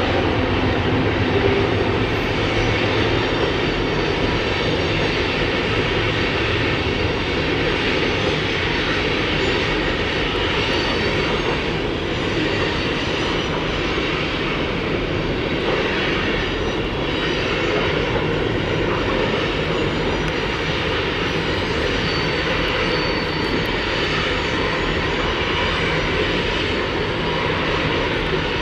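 Freight cars of a long train rolling across a steel trestle bridge: a steady rumble of wheels on the rails that holds an even level throughout.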